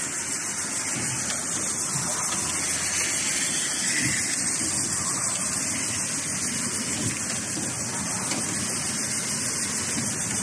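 Cotton swab making machine running, a steady hiss-like machine noise with no clear beat.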